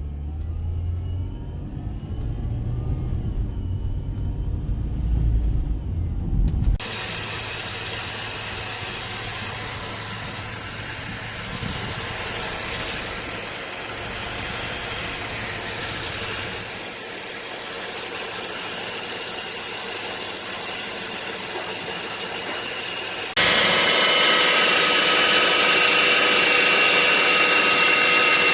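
Subaru Tribeca B9 flat-six engine running, with the accessory-belt tensioner pulley bearing humming: a steady multi-pitched whine that is the sign of a worn tensioner pulley bearing. The sound changes abruptly about 7 s in and again near the end, where it is louder and the steady whine tones are clearest; the first seconds are a lower rumble.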